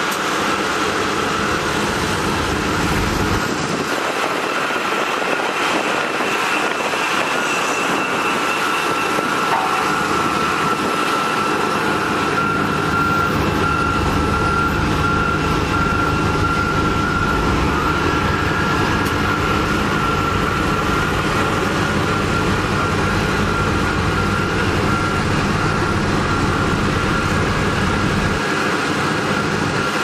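Heavy diesel road construction machinery running steadily, with a thin high whine held over the engine rumble.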